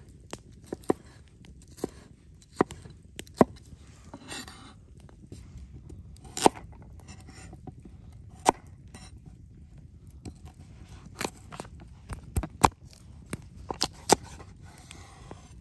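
Large kitchen knife chopping red pepper and then slicing carrot on a wooden cutting board: irregular sharp knocks of the blade meeting the board, roughly one a second.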